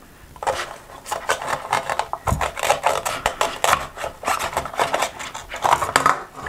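Velcro ripping apart as a toy knife cuts through a velcro-joined plastic toy watermelon: a rapid crackling rasp lasting several seconds, with a knock about two seconds in.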